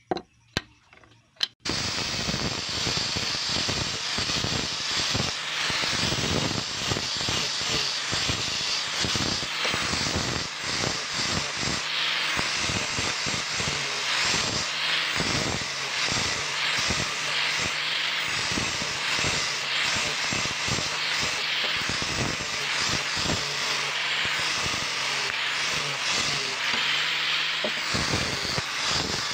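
Angle grinder with a sanding pad running and sanding small cut wooden pieces: a loud, continuous, uneven grinding rasp that starts about a second and a half in, after a couple of short knocks.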